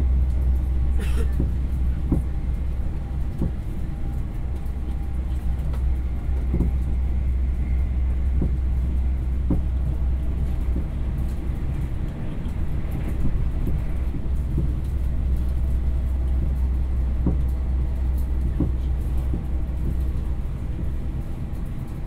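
Ride in a moving train carriage: a steady low rumble with scattered short knocks and rattles.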